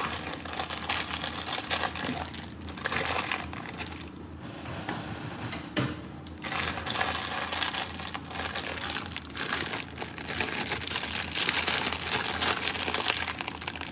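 A plastic bag of powdered baking mix crinkling and rustling as hands pull it out of its box and twist and work it open, with a short lull a little after four seconds in.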